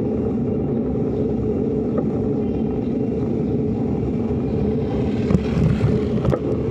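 Steady wind and road rumble from riding a bicycle on pavement, with a few short knocks and rattles between about five and six and a half seconds in.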